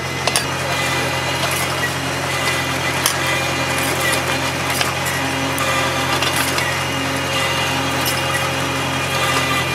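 Tractor engine running steadily under load as a mounted Arrizza Expo R-Top vineyard cultivator, with a motorised disc gang and under-vine blade, works through soil. A few sharp knocks stand out, about half a second in and again about three seconds in.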